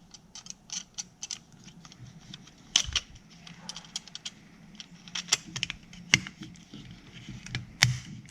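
Small plastic clicks and taps as a LiftMaster garage door remote's case is handled and pressed back together, irregular, with sharper snaps about three, six and eight seconds in.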